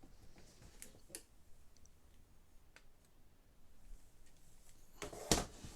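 Hard plastic Lego Technic pieces clicking as they are handled and pressed together, with scattered faint clicks and a louder sharp click about five seconds in.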